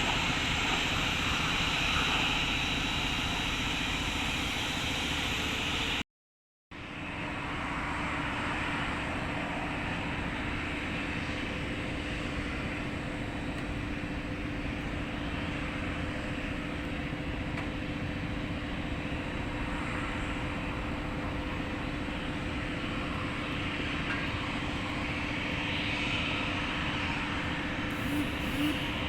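Jet airliner engines running steadily on approach to land, a continuous rumble with a steady hum. The sound drops out briefly about six seconds in, then carries on.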